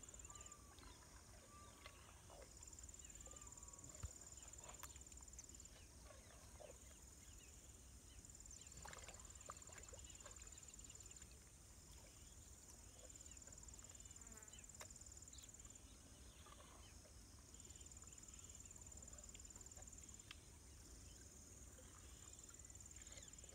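Faint natural ambience: an insect trilling high-pitched in on-off bouts of a few seconds, over a low steady rumble with scattered faint clicks and chirps.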